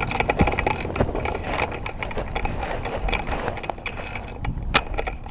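Footsteps crunching and rustling through dry leaves and brush, with one sharp click or snap near the end.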